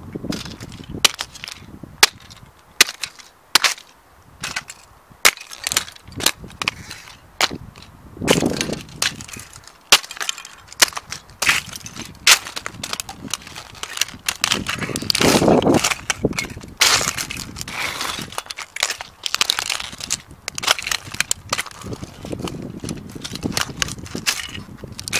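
Dr. Martens steel-toe boots stamping on and grinding the broken plastic pieces of a toy tram on asphalt: many sharp plastic cracks and snaps. There are a few longer crunching scrapes of fragments ground underfoot, the loudest about halfway through.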